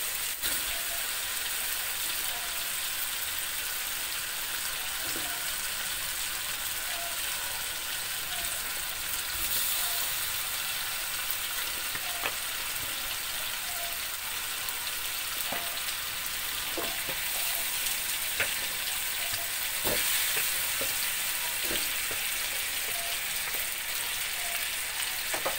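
Ground chili spice paste sizzling steadily in a hot metal wok as pieces of catfish and onion are added, with a few sharp clinks of the metal spatula against the pan.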